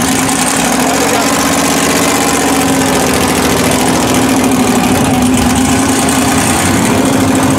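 Supercharged LQ4 V8 engine of a giant mud-bog Jeep idling steadily.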